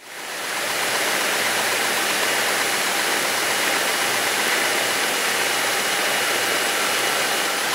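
Steady cabin drone of a light airplane's piston engine and propeller in cruise, heard through the cockpit audio feed, fading in quickly at the start.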